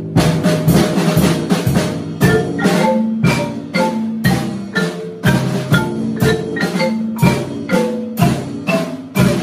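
Children's mallet-percussion ensemble of marimbas and a vibraphone playing a piece: struck wooden and metal bars in a steady rhythm, with low notes ringing on underneath.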